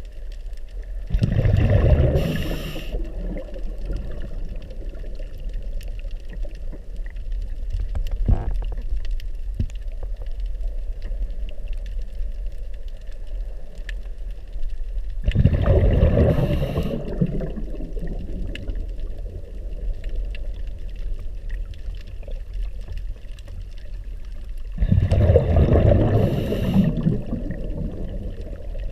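Underwater, a diver's scuba regulator exhaling three bursts of bubbles, each lasting one to two seconds, about a second in, about a quarter of a minute in and near the end, with slow, calm breathing between them. Between the exhalations there is a steady low underwater rumble with faint scattered crackling.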